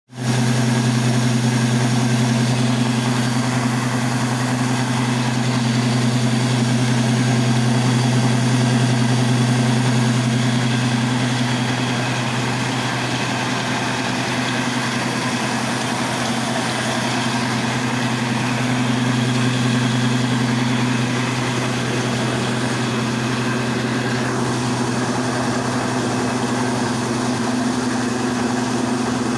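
24-inch atta chakki (flour mill) driven by a 10 hp electric motor, running while grain is fed in and ground. It is a steady, deep hum under an even grinding noise.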